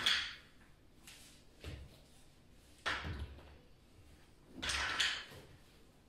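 Movement noises of people doing a standing exercise: about five short, soft thumps with breathy puffs, spaced unevenly over a few seconds, the last one a little longer.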